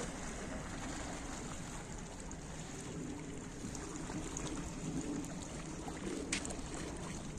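Seawater lapping and sloshing against a quay and a half-submerged metal stairway, with a single light knock about six seconds in.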